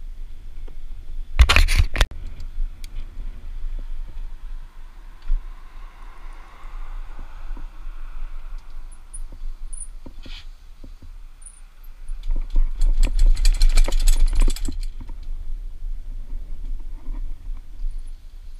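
Jupiter Atlas HD mountain bike rattling and clattering as it rolls over paving stones, over a steady low rumble of wind and rolling. A short burst of hard clattering comes about a second and a half in, and a longer, denser spell of rattling from about twelve to fifteen seconds in.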